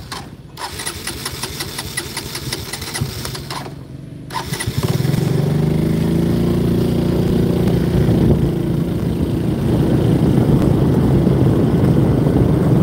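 Motorbike engine ticking over quietly, then revving up about five seconds in as the bike pulls away, and running strongly as it gathers speed.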